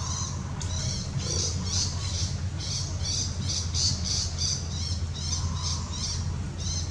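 An animal's high-pitched squeaking calls in a rapid series, about three short calls a second with a couple of brief pauses, over a steady low rumble.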